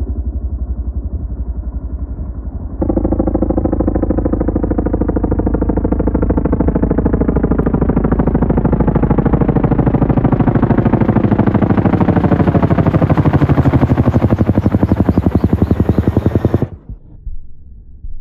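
Boeing CH-47 Chinook twin-turbine tandem-rotor helicopter flying overhead: fast, steady rotor blade thumping over a turbine whine. It gets louder about three seconds in, and the pitch slides down as it passes, before the sound cuts off suddenly near the end.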